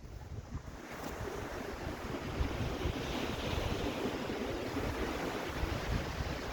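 Sea waves washing on the shore, with wind buffeting the microphone; the wash grows fuller about a second in and keeps on steadily.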